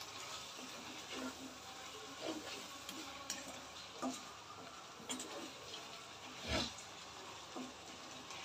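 Wooden spatula stirring thick hog plum pickle in a non-stick wok, with short scraping strokes about once a second, the loudest about six and a half seconds in, over a faint steady hiss.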